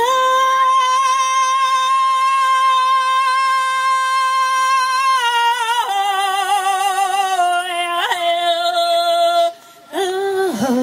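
Evenki woman singing a folk song solo into a microphone: a long high note held with vibrato for about five seconds, then a step down to a lower held note. After a short break near the end she starts a new phrase.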